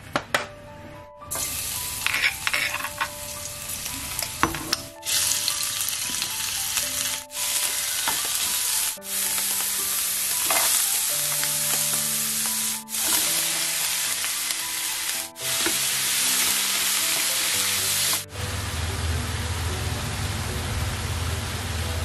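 Ground meat and sliced onion, then snap peas and bamboo shoots, sizzling and frying in a hot non-stick frying pan as they are stirred. The sizzle starts about a second in and cuts off abruptly several times between clips, and near the end it takes on a deeper rumble.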